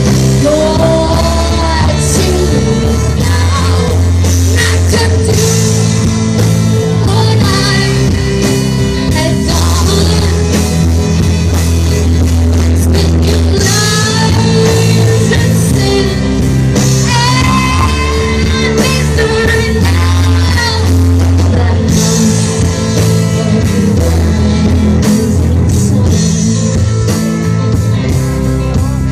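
Live rock band playing in a club, a singer's voice over electric guitar, bass and drums, with steady bass notes throughout.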